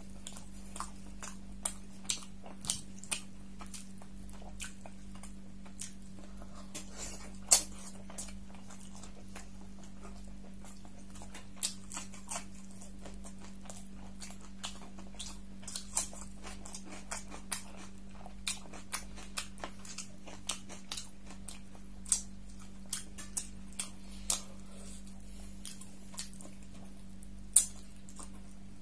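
Close-miked chewing and wet mouth smacks of someone eating beef curry and paratha by hand: irregular sharp clicks and smacks over a steady low hum.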